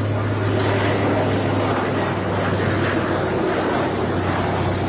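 Consolidated PBY Catalina flying past, its two Pratt & Whitney R-1830 Twin Wasp radial engines and propellers giving a steady, deep drone.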